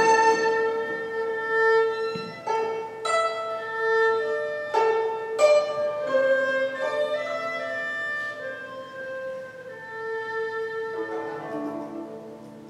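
Chinese traditional ensemble music: an erhu plays a slow, sustained bowed melody while the guzheng and yangqin add plucked and struck notes. The music grows gradually quieter toward the end.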